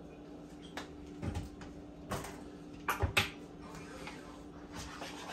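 A few short knocks and clatters, the loudest cluster about three seconds in, over a steady low hum.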